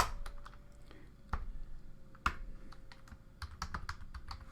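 Typing on a computer keyboard: irregular key clicks with a few harder keystrokes, over a faint steady hum.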